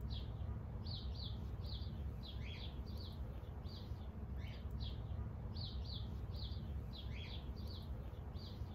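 A bird chirping over and over, short high notes about two a second, over a steady low rumble.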